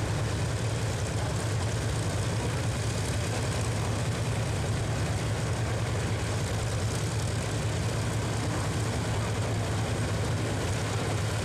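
Radial aircraft piston engine idling on the ground: a steady low drone with no change in pitch.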